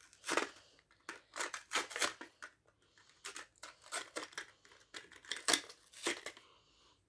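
Cardboard backing being torn and peeled by hand off a Hot Wheels blister pack, the plastic blister crinkling: a string of short, irregular tearing and rustling noises.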